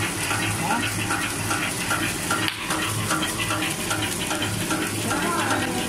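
Horizontal flow-wrap packing machine running, wrapping flour-clay sticks in plastic film, with its sealing and cutting mechanism clattering in a fast, even rhythm.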